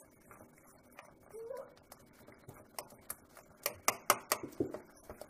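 A utensil stirring and mashing thick apple-and-beetroot jam in a non-stick pan: soft scraping, then a quick run of sharp taps against the pan about three to four and a half seconds in.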